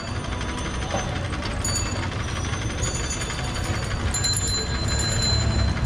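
Street traffic: a steady low rumble of vehicle engines, with faint thin high tones coming and going in the second half.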